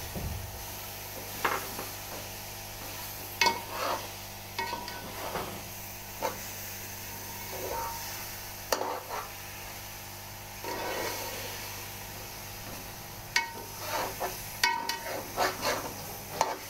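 Metal spoon stirring thick grated-carrot halwa in a steel pot: irregular scrapes and clinks of metal on metal, a few ringing briefly, over the faint steady sizzle of the mixture frying in oil.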